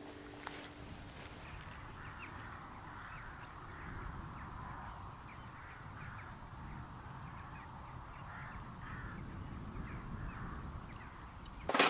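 Crows cawing several times, faint, over a low rumble of wind on the microphone.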